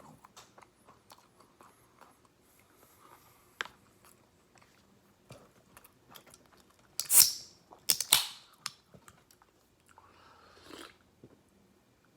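Close-miked chewing of boneless fried chicken, with soft wet mouth clicks and two loud crunchy bites about seven and eight seconds in.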